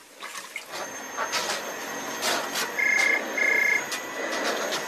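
Vacuum cleaner running, with a telephone giving a double ring, two short bursts, about three seconds in.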